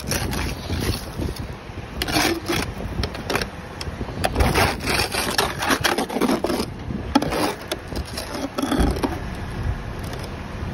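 Ice scraper scraping freezing-rain ice off a car, a run of rough, uneven strokes through the middle, over a steady low rumble.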